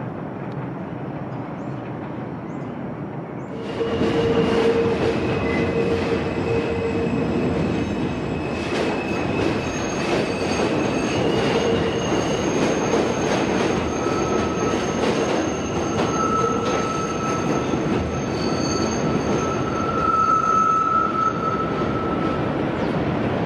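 New York City subway train running on an elevated steel structure, its wheels squealing in several long steady high tones over a dense rumble. The sound is steadier and quieter at first and jumps suddenly louder about four seconds in.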